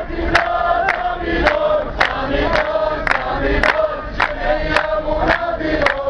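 A large crowd chanting in unison, many voices together, with rhythmic hand clapping in time at just under two claps a second.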